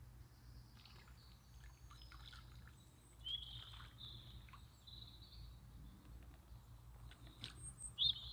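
Small birds chirping and calling, with short high notes scattered throughout and a louder run of chirps near the end, over a faint low steady rumble.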